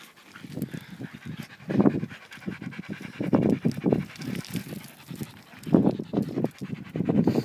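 A dog panting hard, in quick runs of breaths that swell and fade several times.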